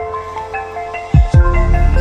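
Background music: a light mallet-percussion melody of short notes, joined about a second in by a deep bass that comes in with two quick falling swoops and makes it much louder.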